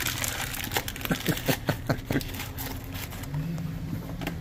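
Crinkling and rustling of Jello packets as they are opened and emptied into buckets of corn, with a quick run of crackles and clicks about a second in. A steady low hum comes in a little after three seconds.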